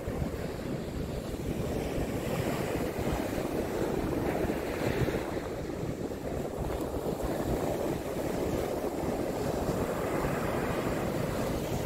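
North Sea surf breaking and washing up a sandy beach, an even rushing noise that rises and falls with the waves, mixed with wind buffeting the microphone.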